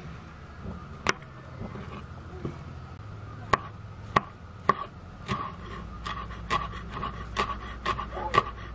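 Ceramic knife cutting on a wooden cutting board: a few separate knocks of the blade as mushrooms are sliced, then quicker chopping of basil from about five seconds in, at two to three strokes a second.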